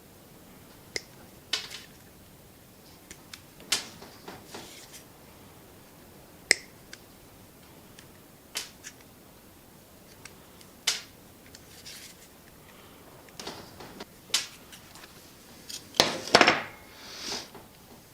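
Scattered light clicks and taps of small metal tools and parts being handled, about a dozen single ticks with a quicker clatter near the end.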